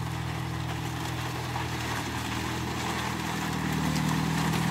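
A car driving slowly across a bamboo bridge. Its low engine hum grows louder as it comes closer, with faint crackling from the bamboo deck under its tyres.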